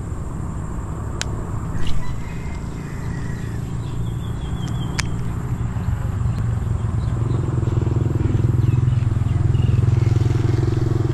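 A motorcycle engine running close by, a low rumble that grows louder over the last few seconds. Two sharp clicks cut through it about one and five seconds in.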